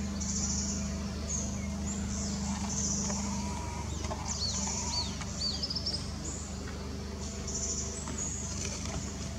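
Birds chirping, with a quick run of short arched chirps about halfway through. Behind them are repeated high buzzing phrases and a steady low hum.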